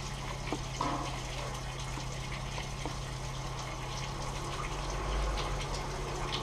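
Caustic soda and xanthan gum solution being stirred by a gloved hand in a stainless steel bowl, the liquid swirling, over a steady low hum.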